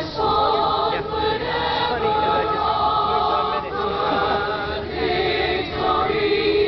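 A large choir of many voices singing a slow school song in long held notes, changing pitch about once a second.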